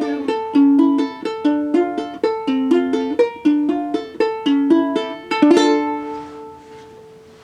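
Ukulele playing the closing chords of a song, plucked in a steady pattern; a final chord about five and a half seconds in rings out and fades away.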